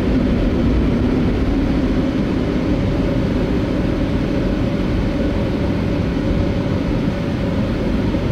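Car wash machine running over a stationary car, a loud, steady whirring drone heard from inside the car.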